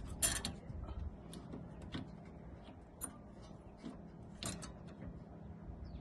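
Light metal clicks and clinks as brake parts are handled and fitted at a car's wheel hub during a brake pad change: a short clatter just after the start, then a few separate clicks.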